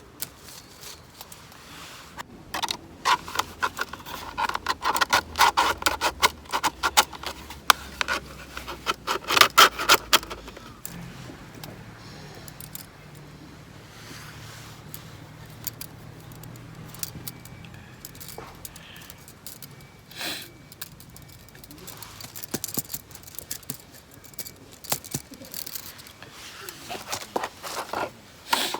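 Metal camping gear clinking, jangling and scraping in bursts as it is handled, with the busiest clatter in the first third and again near the end.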